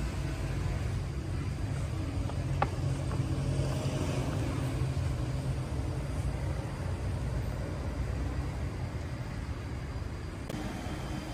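Steady low rumble of a running motor vehicle engine, with a single sharp click about two and a half seconds in.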